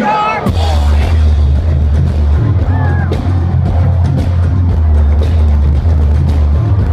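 Live band playing through a festival PA, heard close to the stage on a phone's microphone. Heavy, sustained bass notes dominate the sound, with drums and a voice faintly above them.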